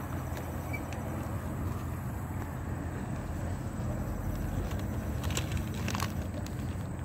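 Steady low outdoor background rumble. Two short crisp sounds come about five and six seconds in, as a bite is taken from a chicken salad wrap.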